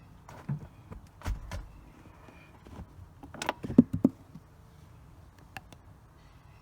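Scattered clicks and knocks of a screwdriver and hands working a Phillips screw out of plastic car interior trim, with the loudest cluster of knocks about three and a half seconds in.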